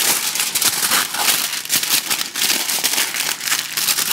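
Aluminium foil crinkling and crackling as hands fold and crimp it tightly around a roast, a dense run of crackles with no break.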